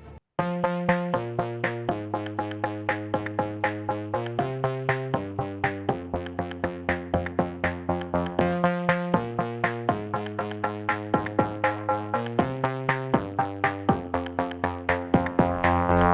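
Background music: an electronic track of quick, evenly repeating synthesizer notes, about four a second, over changing chords.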